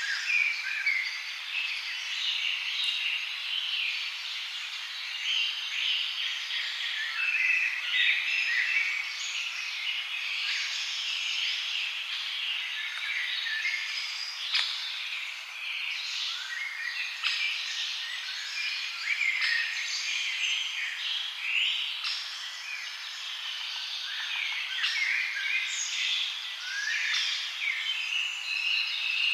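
A dense chorus of many birds, singing and chirping over one another, from several directions at once.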